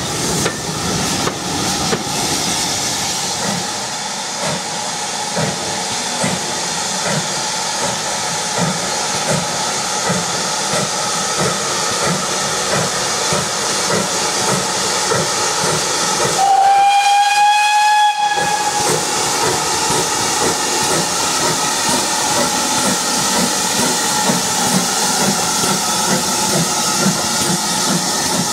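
GWR 0-6-0 steam locomotive No. 3205 hauling a passenger train past, with steady hissing and rhythmic exhaust and rail noise. About halfway through, its steam whistle sounds once for about two seconds, rising slightly in pitch; this is the loudest sound.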